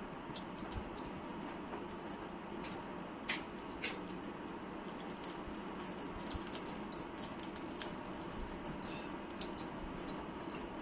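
Ghee going into a pan on a gas stove: a low, steady hiss with a few light clicks of utensils, and small ticks coming more often near the end.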